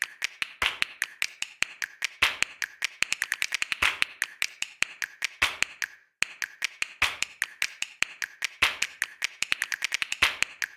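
Rapid, uneven series of sharp taps, several a second, with a brief pause about six seconds in.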